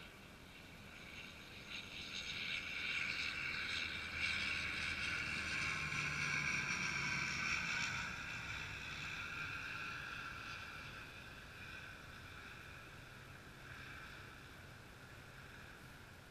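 Jet aircraft passing near the airport: engine rush and whine swell to a peak a few seconds in, with a slightly falling tone, then slowly fade away.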